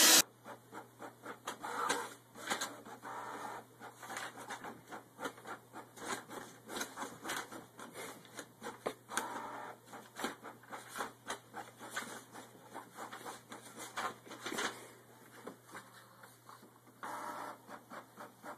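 Canon inkjet printer printing: rapid clicking and ticking of the print-head carriage and paper feed, with short whirring runs, over a steady low hum.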